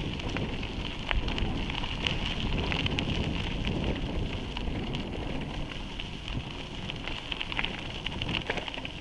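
Bicycle tyres rolling over a gravel village road with a steady crackle and scattered small clicks, and wind rumbling on the microphone.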